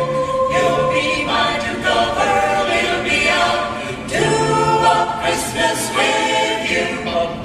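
Vocal group singing a doo-wop song in close harmony, holding sustained notes with little or no audible instrumental backing.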